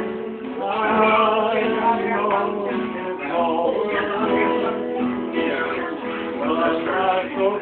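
Men singing along to a strummed acoustic guitar.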